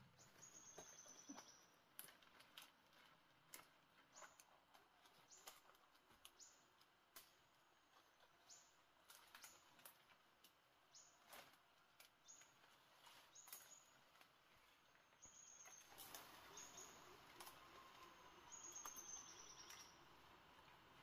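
Faint forest sounds: a bird repeating short high whistles that slide downward, one every second or two. Scattered clicks and snaps come from leafy plants being handled and picked, and this rustling grows louder in the last few seconds.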